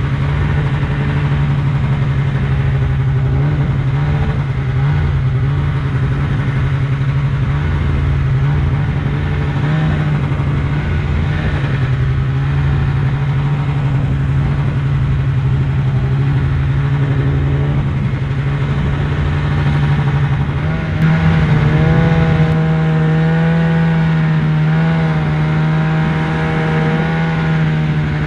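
Snowmobile engine running under throttle, heard from the rider's seat, at a fairly steady pitch. About 21 seconds in it gets louder and revs higher, holding the higher pitch.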